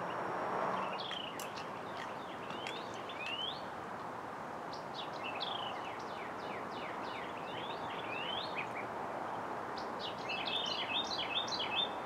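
Small birds chirping, short rising and falling calls again and again, over a steady outdoor background hiss, with a quicker run of chirps near the end.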